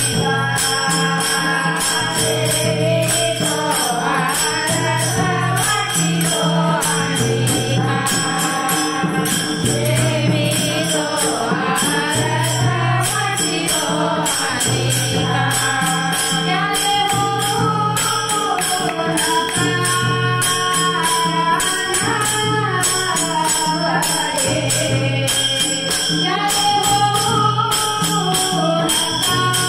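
Marathi Warkari bhajan: a devotional melody sung over a steady held drone, with a low drum beating about once a second and small hand cymbals striking in a regular rhythm.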